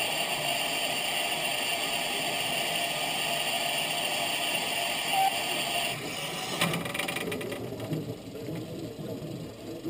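Steam hissing steadily from the standing narrow-gauge steam locomotive No. 4 Loch, cutting off about six seconds in. A few metallic clanks follow.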